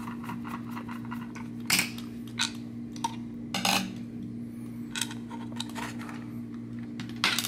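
Scattered small clicks and taps of a screwdriver and screws on a plastic inclinometer housing as the back screws come out and the unit is pulled apart, the loudest knock near the end. A steady low hum runs underneath.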